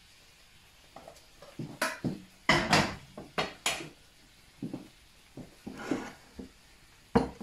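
A metal spoon clinking and scraping against a steel pot and a ceramic plate as stew is spooned out: a run of clatters, loudest in the middle, then one sharp knock near the end.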